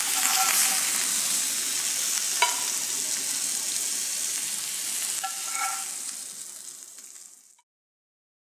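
Salmon steaks sizzling in a hot grill pan, a steady hiss. A few light metal clinks ring briefly as the slotted spatula meets the pan and plate. The sizzle fades near the end and then cuts off.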